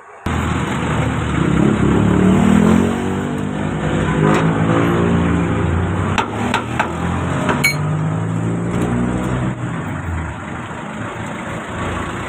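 Motor vehicle engine running, its pitch rising about two seconds in and settling again, with a few sharp clicks over the middle stretch.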